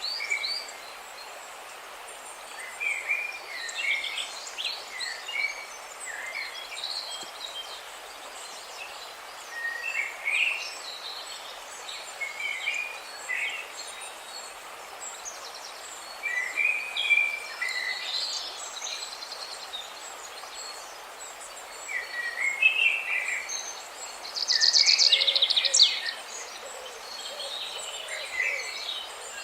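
Songbirds chirping in short, scattered calls and quick glides over a steady hiss of running water, with one loud, rapid trill near the end.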